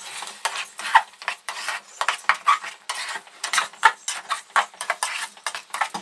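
Metal spatula scraping against the inside of an aluminium pot, stirring raw rice and lentils into the masala in quick, repeated strokes, several each second.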